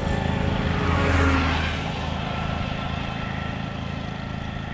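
A motor vehicle passes by, swelling up about a second in and fading, over a steady low motor hum.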